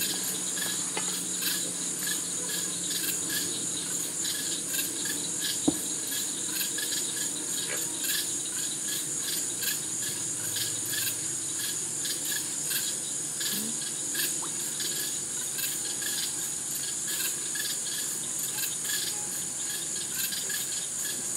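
Evening insect chorus: a steady high trill with quick, regularly repeated chirps. A single sharp pop stands out about six seconds in.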